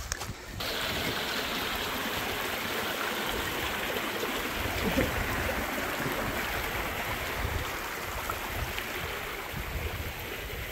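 Shallow rocky stream running, a steady rush and splash of water over stones that starts suddenly about half a second in. A low uneven rumble sits underneath.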